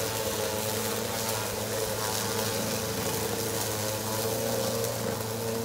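EGO self-propelled battery-powered lawn mowers running at a steady hum, their blades cutting through tall grass.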